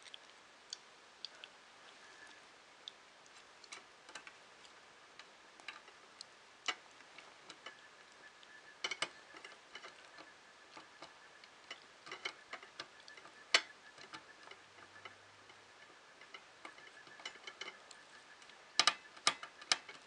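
Small screws and plastic parts being handled and fitted, giving scattered light clicks and ticks. The sharpest click comes a little after halfway, and three quick clicks sound close together near the end.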